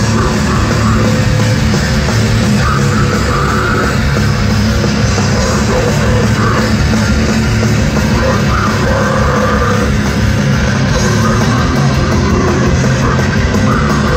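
Death metal band playing live at full volume: distorted electric guitars, bass guitar and drum kit pounding along without a break.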